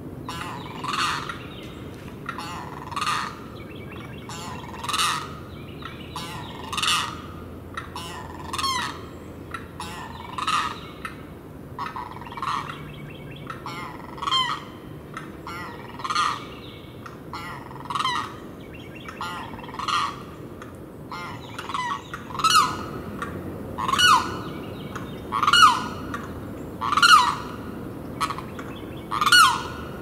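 Limpkin giving its loud crying calls, one about every two seconds, growing louder and coming a little quicker in the last third, with fainter calls in between.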